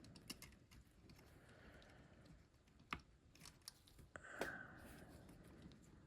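Faint small clicks and taps of plastic model-kit parts being handled and fitted by hand, with a few sharper ticks around the middle.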